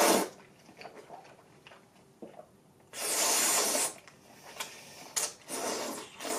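A person slurping thick Sanuki udon noodles: one long slurp about three seconds in, then a few shorter slurps near the end.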